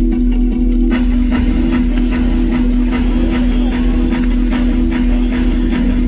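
Live rock band heard from the audience through the arena PA, playing an instrumental passage: a held low guitar and bass chord under a steady beat, with the drums and cymbals filling in about a second in.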